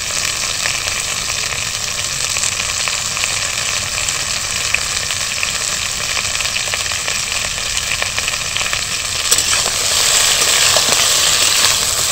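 Sliced ridge gourd frying in hot mustard oil in a kadai: a steady sizzle with scattered small pops, getting louder about ten seconds in.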